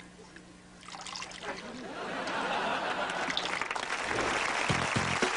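A Great Dane urinating into a toilet bowl, a faint trickle into the water. From about two seconds in, studio audience laughter and applause build and grow louder.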